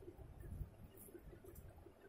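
Faint sounds of eating by hand: fingers mixing and squeezing rice on a steel plate, with soft thumps and a few small clicks.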